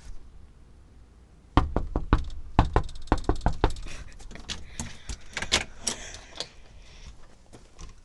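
Knocking on a door: a quick run of about eight sharp knocks starting about a second and a half in, followed by lighter, scattered taps and rustling.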